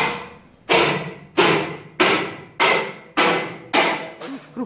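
Hammer blows struck at a steady pace, about seven evenly spaced strikes, each ringing briefly, with a couple of lighter knocks near the end.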